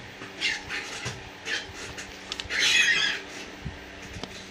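Handling noises from working with small repair materials: a few short rustling scrapes, the longest and loudest about two and a half seconds in.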